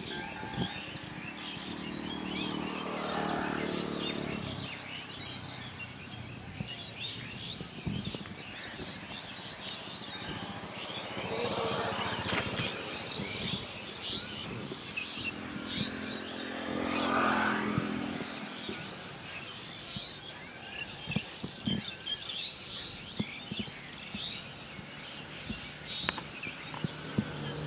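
Small birds chirping and twittering over outdoor rural ambience. Twice a low droning hum swells and fades over a couple of seconds, and a single sharp click sounds about halfway through.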